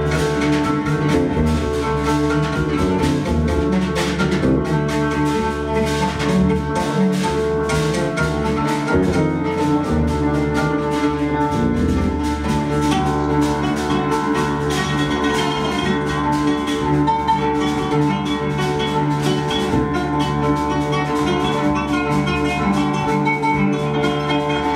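Live ensemble music: an electric bass holds low notes under a plucked oud, with piano and hand percussion adding struck notes throughout.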